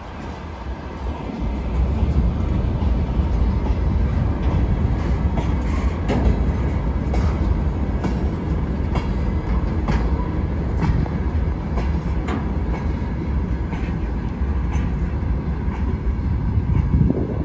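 Freight train of open gondola wagons rolling past, a steady low rumble of wheels on rail, with repeated sharp wheel clicks.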